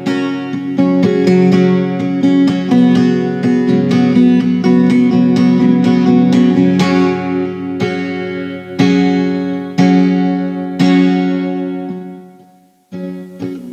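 Guitar instrumental passage: strummed and plucked chords ringing out, with no singing. The playing dies away about a second before the end, then starts again.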